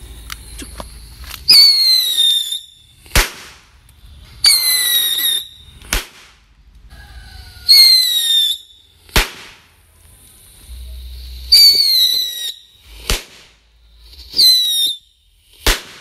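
Whistling firecrackers (mercon tikus) going off one after another. Five times there is a shrill whistle lasting about a second, falling slightly in pitch, followed by a sharp bang.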